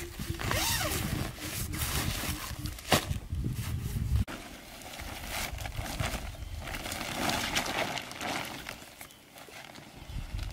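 A nylon tent bag being unzipped and handled over a low rumble with a few sharp clicks. About four seconds in the sound cuts off abruptly, and a plastic tarp rustles as it is spread over the ground.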